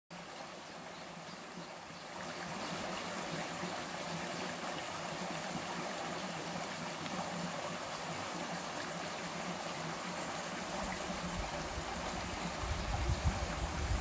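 Small forest stream running and splashing over a low step of stones: a steady rush of water. It grows a little louder about two seconds in, and a low rumble comes in near the end.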